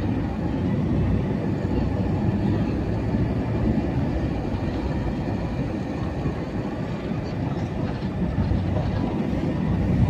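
Steady low rumble of a moving vehicle heard from inside its cabin: engine and road noise with a faint low hum.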